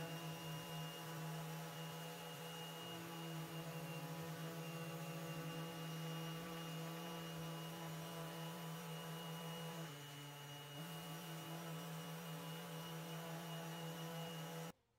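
Festool random orbital sander with dust extraction running steadily on an epoxy resin and wood tabletop, a constant hum with a thin high whine. It dips briefly about ten seconds in and cuts off suddenly near the end.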